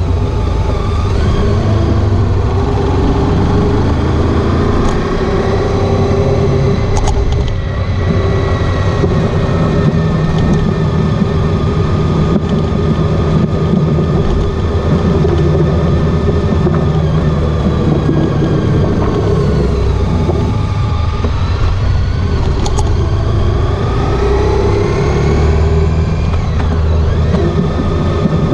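Honda ST1300 Pan European's V4 engine running on the road, mixed with steady wind and road noise. The engine pitch climbs under acceleration about three-quarters of the way through.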